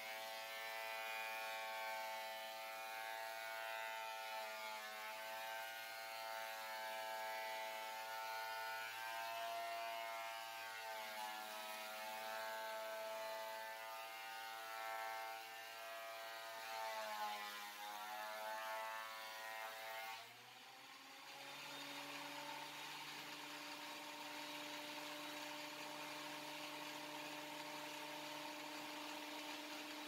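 WEN benchtop thickness planer cutting a board, its motor pitch wavering and sagging under the load, most deeply about 17 to 18 seconds in. About 20 seconds in the board clears the cutterhead: the sound dips briefly, then the planer runs on empty with a steadier, quieter hum.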